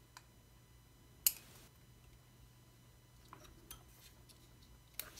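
Small clicks and taps of a hex driver and a plastic XT90 plug being worked into a 3D-printed mount, with one sharper click a little over a second in and a few lighter ticks later.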